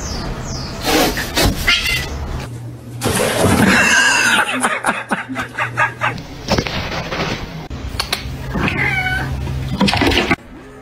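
Cats meowing and yowling: a long wavering cry about four seconds in and another near nine seconds, with scattered short knocks between them.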